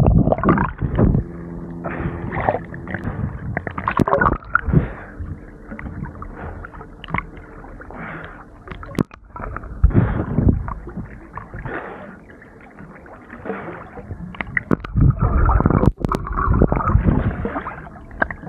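Water splashing and sloshing around a person swimming, in irregular bursts.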